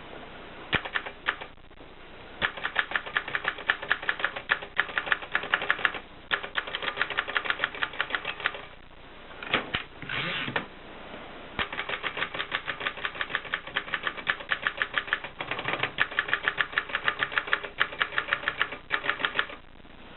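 Adler 7 manual typewriter being typed on: quick runs of sharp keystroke clacks broken by short pauses, with a brief rushing, sliding sound about ten seconds in.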